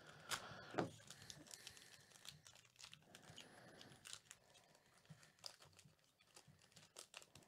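Foil wrapper of a 2019 Topps Tier One baseball card pack crinkling and tearing as it is pulled open by hand: faint, scattered crackles and small snaps.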